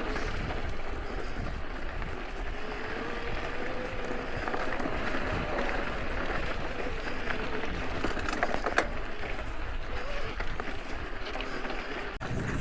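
Mountain bike riding along a dirt trail: steady rolling noise with scattered sharp knocks and rattles, the loudest about nine seconds in.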